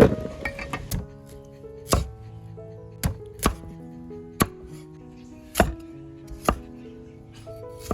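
Knife chopping on a cutting board: about eight sharp, unevenly spaced chops, over background music of sustained notes.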